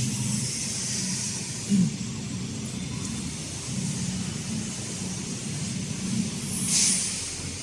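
Pneumatic cylinders on a CNC wood lathe's auto-feed releasing compressed air: a hiss at the start that fades within a second and another short hiss near the end, over the machine's steady low hum. A brief low sound stands out about two seconds in.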